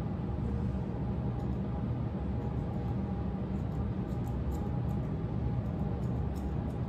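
Grooming scissors snipping a bichon frise's curly face fur: faint, short, irregular snips over a steady low hum.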